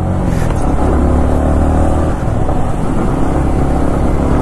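Yamaha MT-15's 155 cc single-cylinder engine running as the motorcycle accelerates under way, with a short dip about two seconds in.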